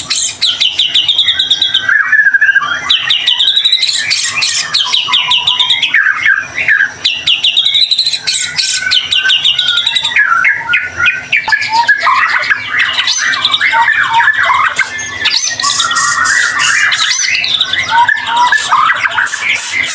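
White-rumped shama (murai batu) singing a long, varied song without pause: fast ringing trills, whistled notes and chattering phrases following one another.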